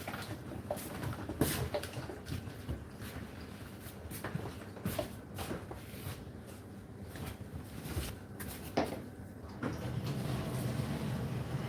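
Kitchen clatter: irregular knocks and clicks of cupboard doors and things being handled, over a low steady hum.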